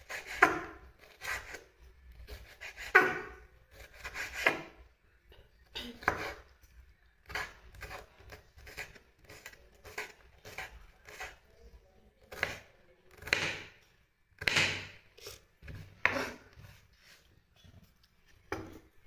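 Kitchen knife slicing green bell pepper on a wooden cutting board: a series of crisp cuts, each ending in a knock of the blade on the board, at an uneven pace that quickens in the middle.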